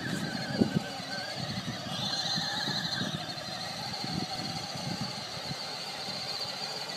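Battery-powered ride-on toy truck driving across sand: a steady high whine from its electric motor and gearbox, over irregular low rumbling from the wheels.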